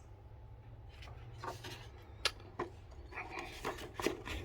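Paper being fed into a 1970 Citizen X3 manual typewriter: scattered light clicks and paper rubbing as the sheet goes round the platen, with a sharper click about two seconds in and a run of clicks near the end.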